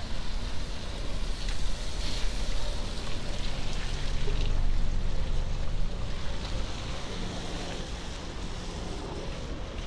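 Traffic on a rain-wet city street: tyres hissing on the wet road over a low engine rumble, swelling about halfway through as a vehicle passes close.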